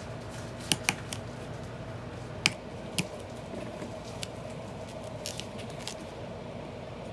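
Sharp clicks and snaps from handwork pulling apart an old book's binding, four louder ones in the first three seconds and a few lighter ones after, over a steady low hum.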